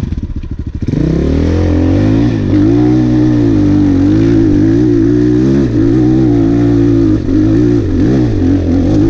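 Regulmoto dirt bike engine chugging at low revs for about a second, then pulling hard under throttle, its revs rising and then wavering up and down as the rider works the throttle.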